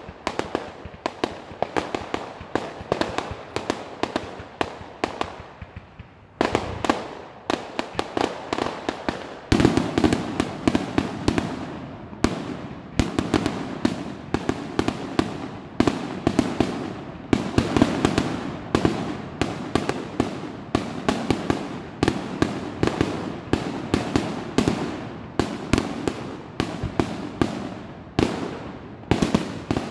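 Aerial fireworks display: a rapid, unbroken string of shell bursts and sharp reports, several a second, growing denser and louder about ten seconds in.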